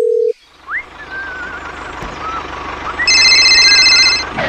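A steady dial tone cuts off just after the start. Then a small engine runs with a fast low pulse under wavering whistles, and a shrill electronic ringing sounds for about a second near the end.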